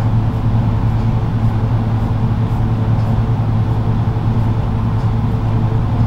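Steady low machine hum with a few faint steady tones above it, unchanging throughout.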